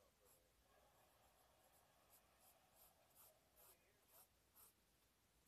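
Faint pencil scratching on paper while sketching. It starts as a steady scratch, then from about two seconds in breaks into quick separate strokes, two or three a second.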